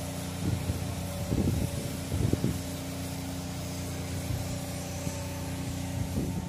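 Pneumatic high-pressure water-cleaning machine running: a steady mechanical drone with a low hum, and a few louder irregular surges.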